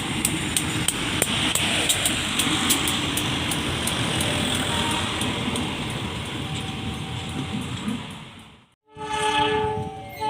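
A passing train rumbling by, its wheels clicking over the rail joints, fading away. After a brief cut, a train horn sounds a held chord near the end.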